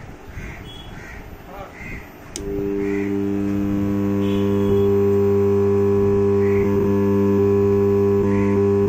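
A home theatre amplifier and speaker switch on with a click about two seconds in, then give out a loud, steady, low hum instead of sound, a fault the repairer puts down to bad transistors on the amplifier board. Crows caw now and then.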